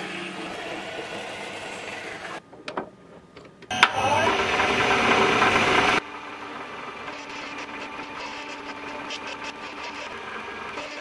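A horizontal metal-cutting bandsaw runs steadily, cutting through a brass bar held in its vise. After a short break with a couple of clicks comes a louder burst of machine noise lasting about two seconds. Then a metal lathe runs more quietly as its cutting tool turns down the brass rod.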